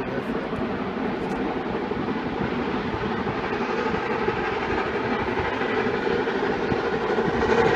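Austerity 0-6-0 saddle tank steam locomotive approaching through woodland, a steady rumbling train noise that slowly grows louder, then falls away suddenly near the end.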